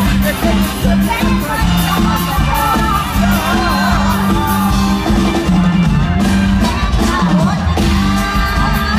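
Live Isan folk-pop band playing through a PA, with a steady drum and bass beat and a woman singing wavering, ornamented vocal lines over crowd noise.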